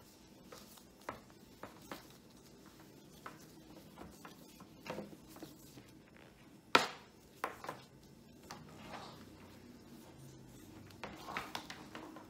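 Gloved hands handling a monitor cable and wiping it with a cloth: scattered light clicks and taps with soft rustling, and one sharper click about seven seconds in.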